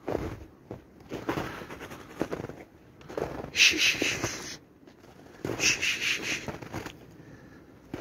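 Footsteps crunching through fresh snow at a walking pace, about one step a second, with a couple of longer, brighter crunches in the middle and later.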